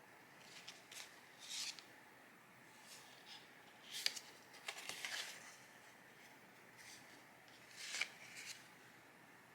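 Several short, faint rustles and scrapes of paper and stationery being handled, the sharpest about four seconds in and again about eight seconds in.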